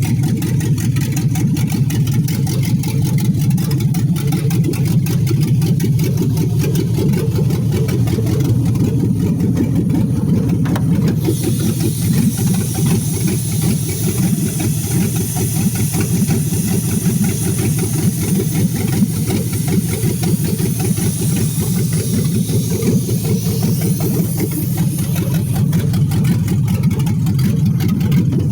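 Engine idling steadily through open exhaust headers, a loud, even, rumbling exhaust note with no revving. A high hiss joins in for a stretch in the middle.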